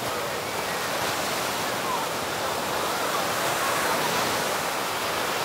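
Steady rush of surf on a crowded beach, with many distant voices chattering and calling over it.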